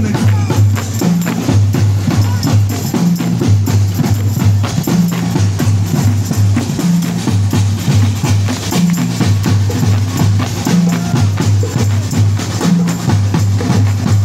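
Music with a repeating bass line and busy, clicking percussion on a steady beat.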